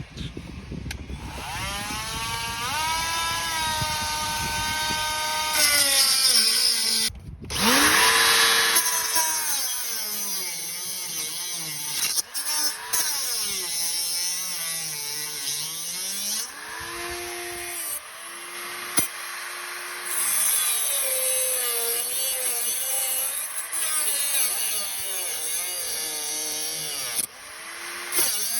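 A power tool cutting through a steel rear sway bar link whose stripped bolt would not come off. Its pitch wanders up and down over a hiss, with a short break about seven seconds in.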